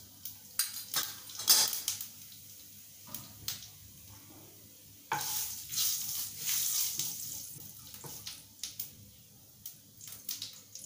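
Cumin seeds sizzling in hot oil in a frying pan, with a spoon and spatula clinking and scraping against the pan. The sizzle swells suddenly about five seconds in and lasts a couple of seconds.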